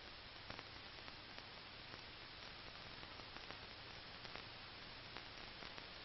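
Faint steady hiss and low hum with scattered light crackles: the background noise of an old film soundtrack, with no other sound over it.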